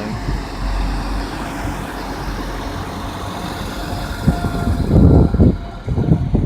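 Class 175 diesel multiple unit pulling out of the station, its diesel engines running in a steady low rumble. A faint steady tone joins about four seconds in, and the rumble surges louder about five seconds in.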